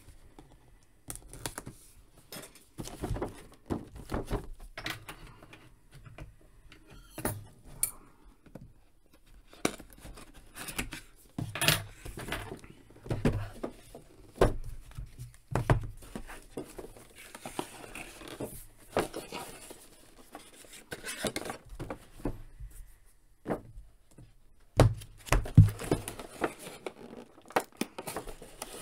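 Hands opening and handling a cardboard action-figure box: irregular taps, knocks and rustles of the packaging.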